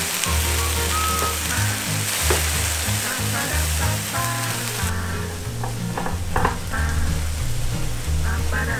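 Diced tomato sizzling in hot oil in a nonstick frying pan, with a silicone spatula scraping and stirring it; the sizzle thins out about halfway through. Background music with a steady bass line plays under it.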